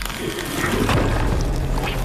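Film soundtrack: music and effects swelling into a loud, rumbling wash of noise about half a second in, with scattered crackles.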